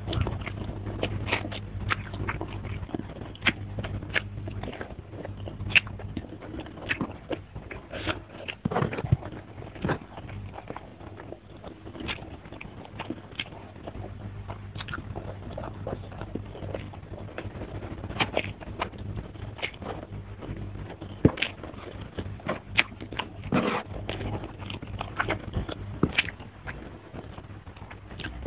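Close-miked mouth sounds of a person eating rice and fried pomfret by hand: chewing, wet lip smacks and small crunches in an irregular stream of sharp clicks. A low hum sits underneath, dropping out for a few seconds at a time.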